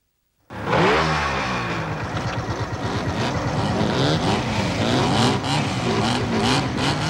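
Motorcycle engines starting up suddenly about half a second in and revving, their pitch rising and falling again and again, with more than one bike heard together.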